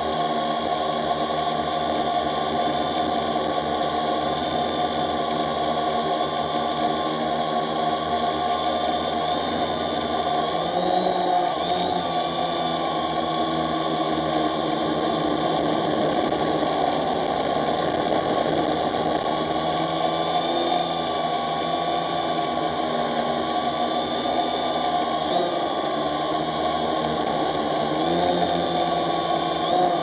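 Drone motors and propellers heard from the camera carried on board: a steady multi-tone whine that shifts in pitch now and then as the drone manoeuvres.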